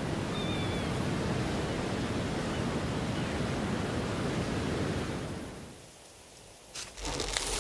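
Steady rush of the sea and surf, fading away about five and a half seconds in; near the end a few sharp crackles and rustles.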